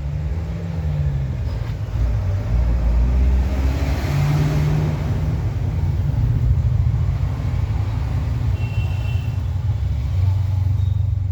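A steady low rumble, with a swell of broader noise rising and fading about four seconds in.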